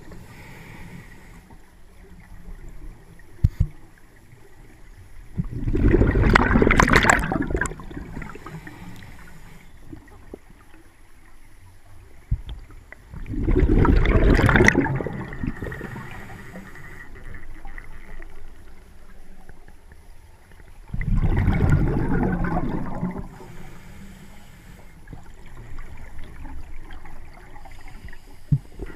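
Scuba diver's breathing underwater: three exhalations through the regulator, each a gurgling rush of bubbles about two seconds long, coming roughly every seven to eight seconds, quieter in between.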